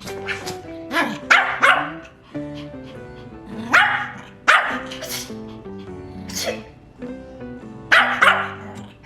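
A Pomeranian barking in short, sharp yaps, about nine of them in irregular clusters, over background music.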